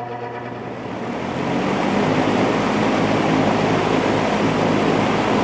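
Lakewood JCPenney 9711 box fan with its 3.1 amp General Electric motor spinning up to high speed: the rush of air grows louder over the first two seconds, then holds steady. It gets up to speed real quick.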